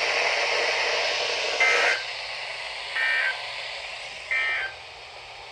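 Emergency Alert System end-of-message data tones: three short bursts of two-pitch digital warbling, about a second and a quarter apart, sign-off of the warning. A steady hiss under the first burst drops away after it, leaving a fainter hiss.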